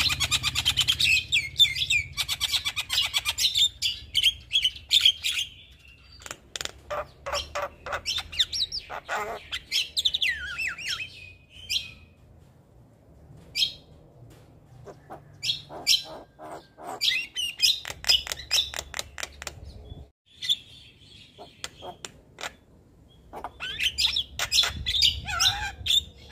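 Javan myna (jalak kebo) singing a long, varied run of chattering notes, rapid clicks and short whistles, broken by brief pauses between phrases.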